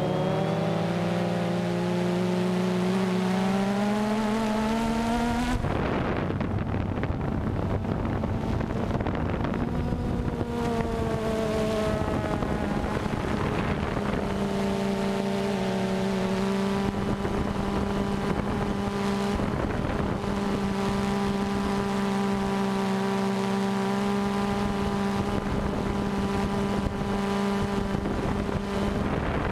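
DJI Phantom 2 quadcopter's motors and propellers humming, heard from on board. The pitch slides upward over the first few seconds and then holds steady. Wind rushes over the microphone from about five seconds in.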